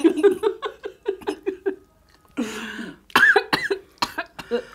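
People laughing hard: a quick run of even 'ha-ha-ha' pulses for about two seconds, then more laughter with breathy bursts and high squeals.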